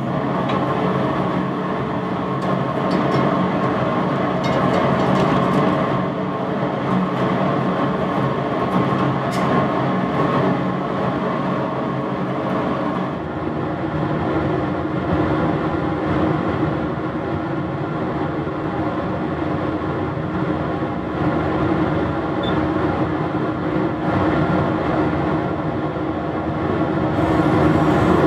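Laboratory fume hood's exhaust blower running with a steady rushing hum.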